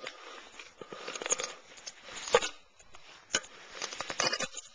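Irregular soft clicks, taps and scratchy rustles, the handling noise of a hand and camcorder moving close to the microphone.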